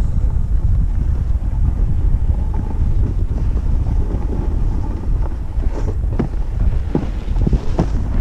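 Wind buffeting an action camera's microphone while skiing downhill, a loud steady low rumble. From about halfway in, a run of short sharp scrapes and clicks cuts through it.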